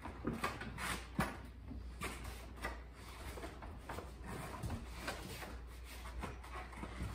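Plastic casing of a ductless mini-split indoor unit scraping, rubbing and knocking lightly against the wall as it is held up and worked onto its mounting plate, with one sharper click about a second in.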